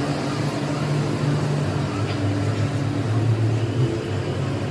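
Steady low machine drone, with one faint light metal clink about two seconds in.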